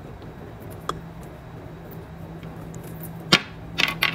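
Handling noise from a white wired earphone cord being worked loose from a knot: soft rubbing with a faint click about a second in, then several sharp clicks in the last second, over a steady low hum.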